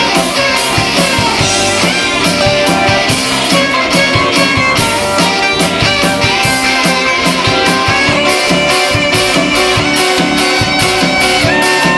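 Upbeat band music with a steady drum beat and no singing: the instrumental dance break of a show tune.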